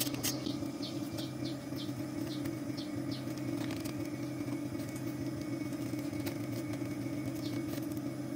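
Small birds chirping repeatedly in short, high, falling notes over a steady low hum.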